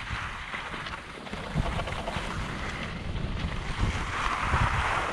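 Wind buffeting the microphone of a skier's action camera, with skis hissing and scraping over packed snow; the scrape swells about four seconds in as the skier leans into a turn.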